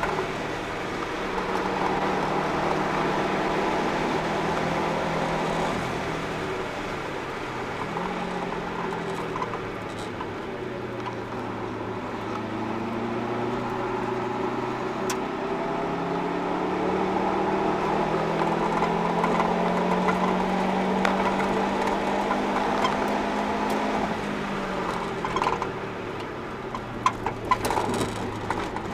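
Subaru Impreza WRX's turbocharged flat-four engine and Invidia cat-back exhaust heard from inside the cabin at track pace. It holds high revs, drops away about seven seconds in as the driver lifts and shifts, then climbs steadily in pitch under acceleration for about ten seconds before falling again. A few sharp knocks come near the end.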